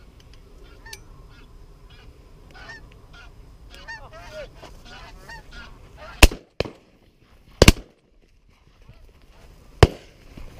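Flying geese honking for the first five seconds or so, then shotgun shots: two loud reports about a second and a half apart, six and seven and a half seconds in, fitting both barrels of a 12-gauge Browning B25 over-and-under, and a third shot about two seconds later.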